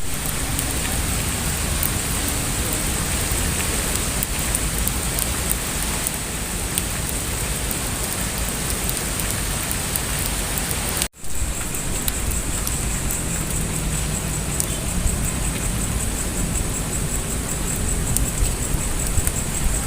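Heavy rain falling steadily, an even hiss broken once by a short gap about eleven seconds in.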